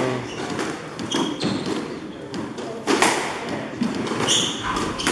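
Squash ball impacts: several sharp thuds of the ball off racket, walls and floor, the loudest about three seconds in, with short squeaks of court shoes on the wooden floor near the end.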